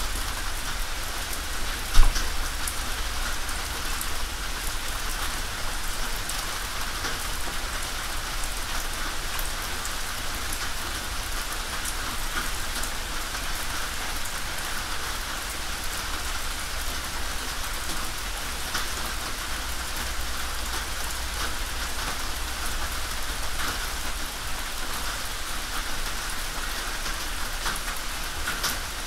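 Steady rain falling on a tin roof, full of sharp ticks of single drops, with one much louder knock about two seconds in.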